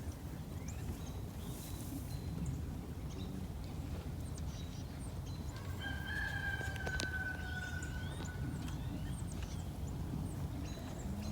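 A rooster crows once, one long held call starting about six seconds in and falling a little in pitch, over a steady low rumble.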